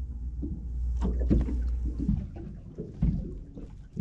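Choppy water lapping and knocking against the hull of a small boat, with a low rumble in the first half and a few sharper knocks about three seconds in and near the end.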